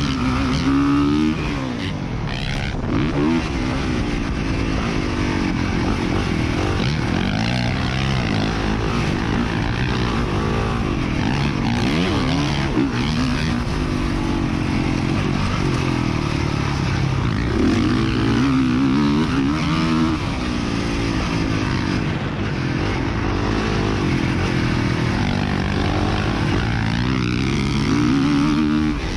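Motocross dirt bike engine heard on board, revving up and down over and over as the rider accelerates and backs off around the track.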